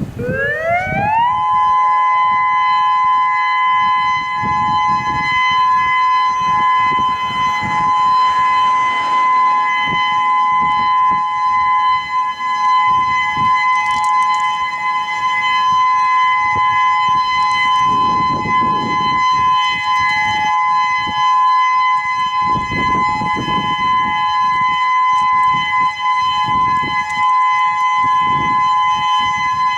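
A Whelen 2016 electronic outdoor warning siren sounds its steady alert tone, the start of a three-minute test alert. The pitch rises for about a second and a half, then holds level as two close tones.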